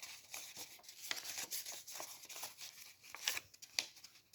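Origami paper rustling and crinkling as it is handled, pinched and creased by hand, in many short scrapes and crackles, the sharpest a little past three seconds in.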